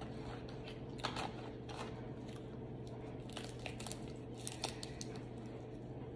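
Air-fried crab leg shells cracking and snapping under gloved fingers, with foil crinkling: a string of short, irregular cracks over a faint steady hum.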